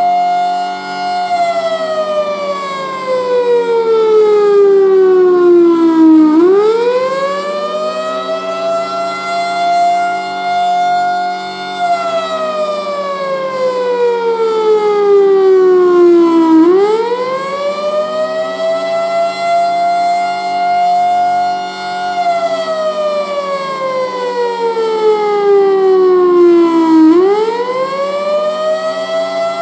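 Federal Signal Thunderbolt 1000 blower-fed siren sounding the Attack signal, a loud wail that climbs, holds briefly at its top pitch, then slides steadily down before climbing again, about three times. A steady low hum runs underneath.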